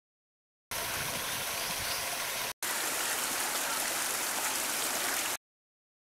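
Small garden waterfall spilling into a pond: a steady rush of falling water that cuts in abruptly under a second in, drops out for an instant partway, and cuts off abruptly shortly before the end.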